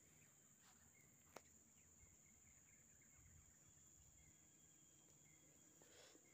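Near silence: faint outdoor quiet with a steady high-pitched insect drone and faint short chirps, and one sharp click about a second and a half in.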